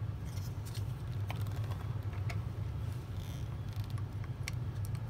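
Faint, scattered clicks and scrapes of a small metal punch and hands working against the plastic wheel assembly of a Shark RV871 robot vacuum, pushing out its pivot pin, over a steady low hum.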